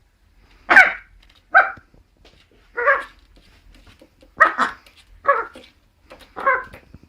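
A dog barking about seven times in short, separate barks at irregular intervals.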